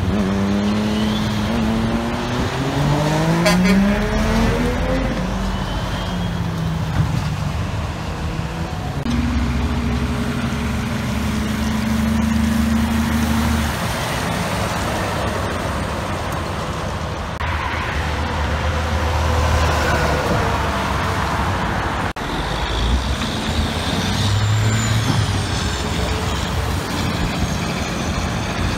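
Heavy diesel dump truck engines pulling away under load, one after another. In the first few seconds the engine climbs steadily in pitch as the truck accelerates, and later trucks hold a steady engine note as they pass.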